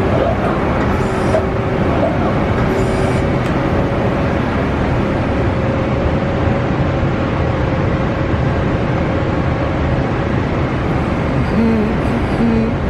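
Mori Seiki SL-403C CNC turning center running under power: a loud, steady mechanical hum with a constant whine, and a few brief shorter tones.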